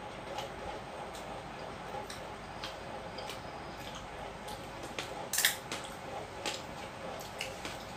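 Two people eating rice and chicken curry with their hands: scattered, irregular wet clicks of chewing and lip-smacking, with a louder cluster of clicks about five and a half seconds in, over steady background noise.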